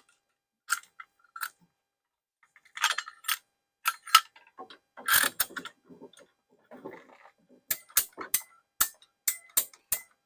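Sharp metallic clicks and short scrapes from a hand tool working on a copper water pipe, ending in a steady run of about three clicks a second, like a ratchet.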